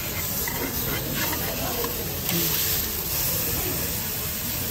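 Hamburger steak sizzling on a hot iron plate as it is cut in half with a knife and fork, a steady hiss of fat and steam.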